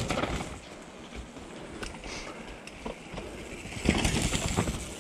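A mountain bike passes close by on a dry, dusty dirt trail about four seconds in, its tyres rolling and scrabbling over loose soil. A shorter burst of knocks and rustling comes at the very start.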